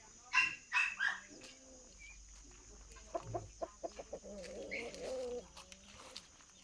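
Chickens clucking and calling: three loud, sharp calls in quick succession at the start, then a quick run of short clucks and a longer, wavering, throaty call.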